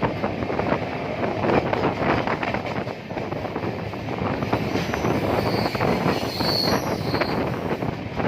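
Passenger train running, its wheels rumbling and knocking over the rails, with wind rushing past. A thin high squeal comes and goes about five to seven seconds in.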